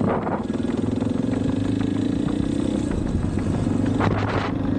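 Off-road motorcycle engines running at a steady pitch while riding a dirt track. There is a brief rush of broader noise at the start and again about four seconds in.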